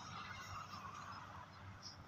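Faint, steady hiss of distant motorway traffic.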